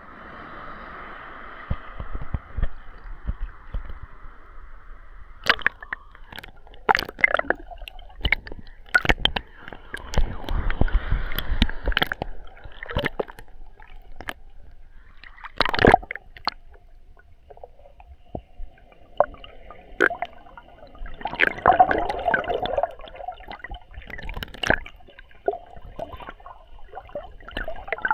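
Sea water sloshing and gurgling around a waterproof action camera in its sealed plastic housing, muffled, with irregular sharp knocks of water against the case.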